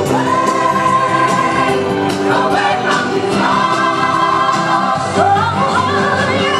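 Gospel-style music with a choir singing held notes; a voice slides up into a high note about five seconds in.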